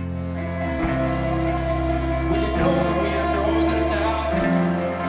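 Live indie rock band playing an instrumental passage: electric guitar chords over sustained bass notes that change every second and a half or so.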